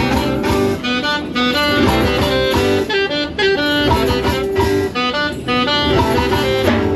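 Background music: a loud melodic instrumental passage with notes changing quickly.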